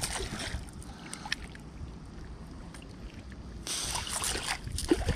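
Wind buffeting the microphone with a low rumble, broken about three and a half seconds in by a short, louder burst of noise and then a few sharp clicks.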